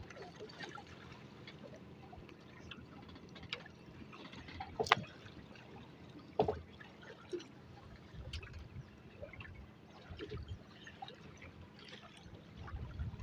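Water trickling and lapping around a small fishing boat, with a few faint knocks.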